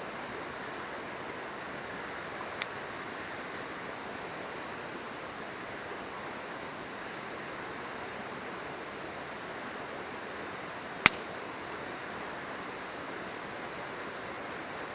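Steady rushing of a river, with two sharp pops from the campfire's burning wood: a small one about two and a half seconds in and a much louder one about eleven seconds in.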